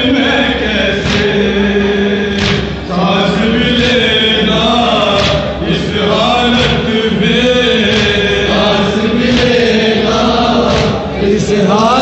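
Group of men chanting a nauha lament in unison through a microphone, the lead voice carrying the melody. Sharp slaps come about once a second, the beat of hands striking chests in matam.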